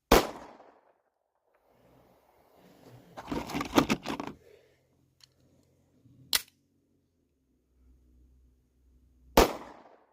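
Beretta 92FS 9mm pistol fired twice, once at the very start and once near the end, each shot ringing off briefly. Between them come a few seconds of jumbled handling noise and a single smaller, sharp crack.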